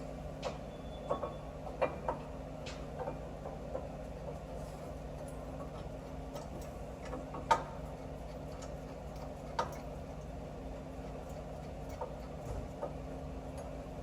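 Scattered light clicks and knocks of metal brake parts and tools being handled and fitted, one sharper knock about halfway through, over a steady low hum.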